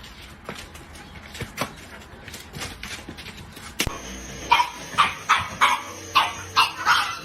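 A dog barking in a quick run of sharp barks, about three a second, starting a little past halfway. Before that, faint scattered clicks and taps.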